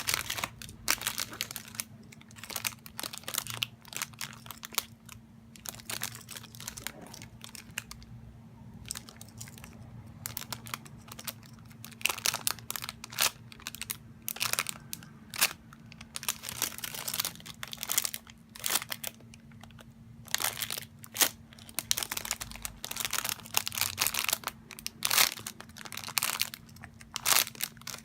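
Irregular crinkling and crackling handling noises, many short strokes in clusters, as a Hello Kitty squishy toy and its wrapping are handled close to the microphone, over a steady low electrical hum.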